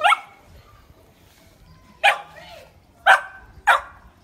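Puppy barking: four short, high-pitched barks, the first right at the start and three more in the second half, a little under a second apart.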